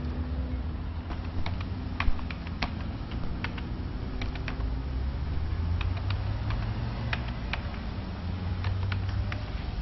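Computer keyboard being typed on: irregular key clicks with uneven gaps, one louder click about two seconds in, over a steady low hum.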